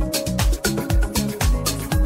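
Electronic dance music from a DJ mix, with a steady beat about twice a second over a bassline.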